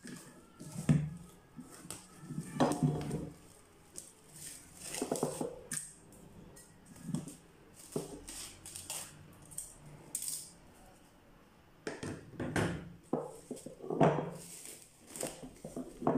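Plastic cling film pulled off its roll and pressed over a glass mixing bowl: irregular crinkling and rustling, with a few clinks and knocks as the bowl and roll are handled on the counter.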